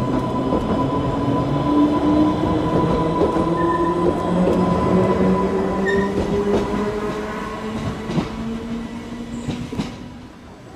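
Island Line Class 484 electric train accelerating, its motor whine rising steadily in pitch over a steady high hum, then fading as the train moves away, with a few clicks from the wheels near the end.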